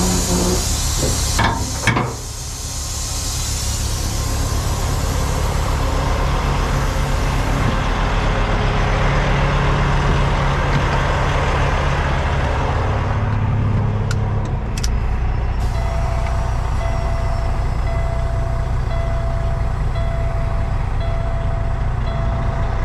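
Heavy truck's diesel engine running steadily, with a hiss that fades away over the first half and two sharp knocks about two seconds in. From about two-thirds of the way through, a regular beeping tone comes in and keeps going.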